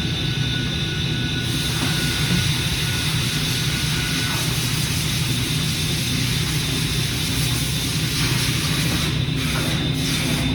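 Hurco CNC milling machine running with a steady mechanical hum and a high whine; a broad hiss comes in about a second and a half in.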